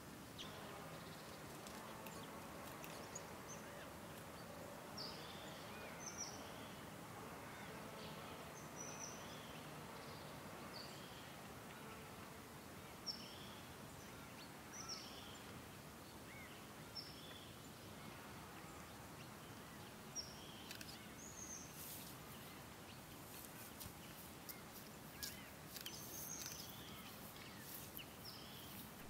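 Quiet woodland ambience with a bird giving short chirping calls over and over, about one every second or two. Near the end comes a run of sharp clicks and rustles.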